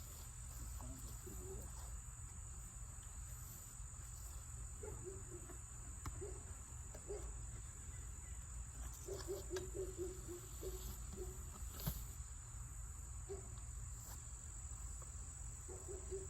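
Steady high-pitched insect trill, with short low buzzes of honeybees flying past and a few faint clicks from working the hive.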